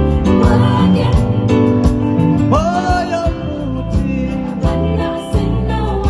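Live band music with a strong bass line, regular drum strokes and guitar, and a voice sliding up and down in pitch about halfway through.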